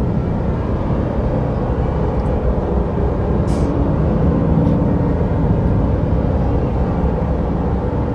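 A loud, steady low rumble, with a few brief hisses about three and a half to six seconds in.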